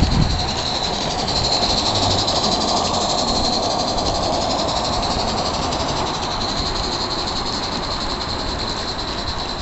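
Live-steam model of the Beyer Peacock tank locomotive Mannin running steadily past with its coaches: an even steam hiss with a fast regular beat.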